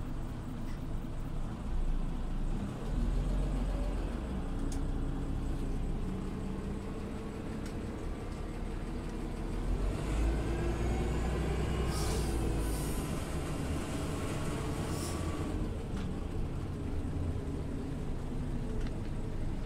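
Scania OmniLink CL94UB city bus heard from inside on the move: a low engine and drivetrain rumble, with the engine pitch climbing steadily about halfway through as the bus accelerates. A couple of short hisses follow a few seconds later.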